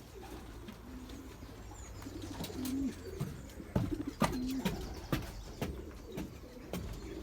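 Racing pigeons cooing: a series of short, low coos, some bending in pitch, with a few sharp clicks among them.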